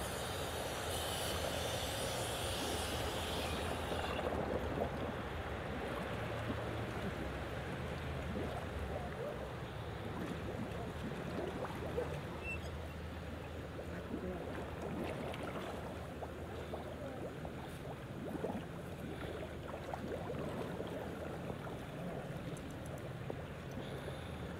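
Swimming-pool water sloshing and bubbling as scuba divers sink below the surface, with their exhaled regulator bubbles breaking at the surface, over a steady low hum. About four seconds in, the high hiss drops away and the sound turns more muffled.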